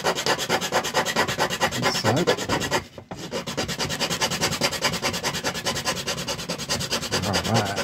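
Hand file rasping at the edge of a plastic remote-control casing in rapid, short back-and-forth strokes, notching out a square opening. The strokes stop briefly about three seconds in, then carry on.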